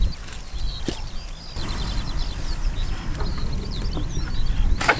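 Small birds chirping in quick, scattered notes over a steady low rumble.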